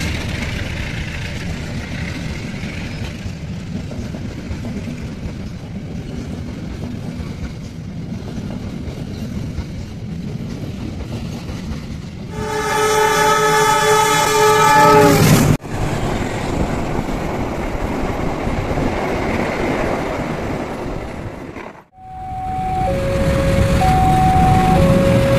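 Passenger train rolling past on the rails with a steady rumble. About halfway a train horn sounds for about three seconds and cuts off suddenly. Near the end, after a break, train rumble returns with an alternating two-note tone repeating over it.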